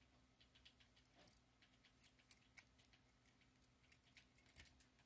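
Near silence: faint room tone with a low steady hum and scattered, irregular light ticks and clicks.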